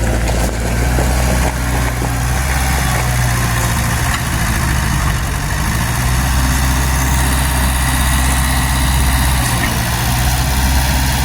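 Heavy diesel engine of construction machinery, an excavator or dump truck, running at a steady idle with a deep, even hum.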